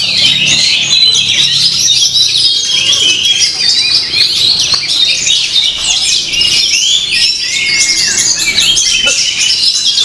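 Caged Oriental magpie-robins (kacer) singing all at once: a dense, unbroken stream of rapid high chirps and quick rising and falling whistles.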